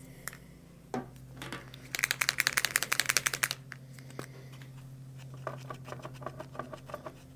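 A paint marker being shaken, its mixing ball rattling in quick clicks for about a second and a half, starting about two seconds in. A few fainter clicks follow over a steady low hum.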